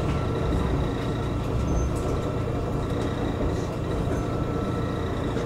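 Tram running along its track, heard from inside the car: a steady rumble of wheels on the rails, with a faint, steady high whine over it.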